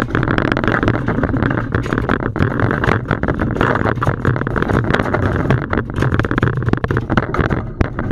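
A marlin thrashing on a small boat's fiberglass deck, making a rapid, irregular clatter of knocks and scrapes over a steady low rumble.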